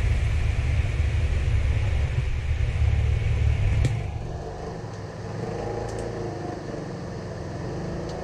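A motor running with a steady low rumble and hiss, cut off with a click about four seconds in, leaving only faint background noise.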